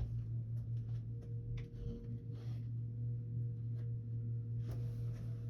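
A steady low hum with a fainter steady tone above it, and a few faint clicks.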